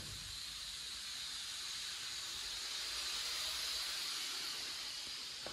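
A steady hiss, swelling a little toward the middle and easing off near the end.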